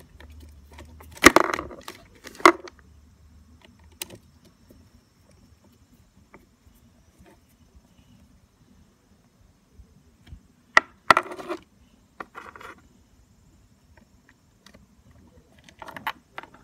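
Screwdriver tip and shaft clinking and rattling against a motorcycle battery's terminal screw as it is tightened, in a few short metallic clatters: about a second in, again around eleven seconds, and near the end.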